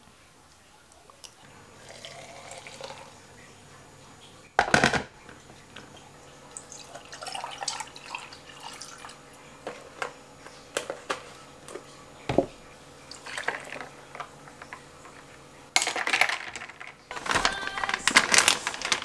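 Coffee dripping and pouring from an AeroPress, with a sharp knock about five seconds in and scattered clicks. Near the end, a plastic noodle packet crinkles loudly as it is handled.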